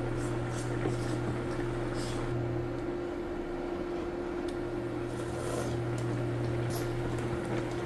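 Steady electrical appliance hum, its lower drone cutting out about three seconds in and returning about a second and a half later. Over it are small clicks of eating: hand-fed rice and a metal spoon scooping soup.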